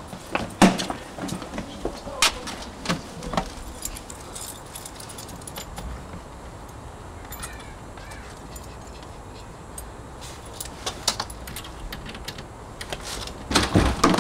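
A bunch of keys jangling and clicking, with scattered sharp knocks, over a low steady background hum.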